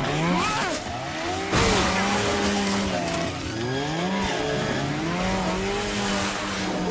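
Snowmobile engines revving, their pitch repeatedly rising and falling, with a sudden crash-like burst about one and a half seconds in.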